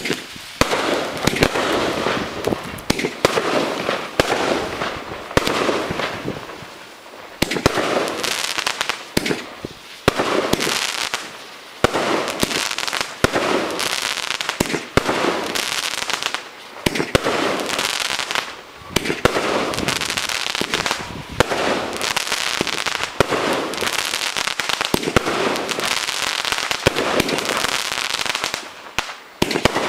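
Empire 36-shot firework barrage cake firing: sharp launch bangs in quick succession over a continuous crackling hiss, with a few short breaks between volleys.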